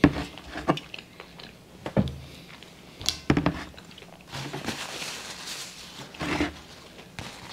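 Soft eating and handling sounds at a table: a few short clicks and knocks, and some soft rustling in the second half.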